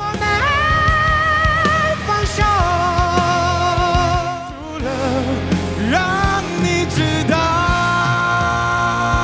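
A singer belting a Mandarin pop-rock song, holding long notes with vibrato, backed by a band with acoustic guitar and bass.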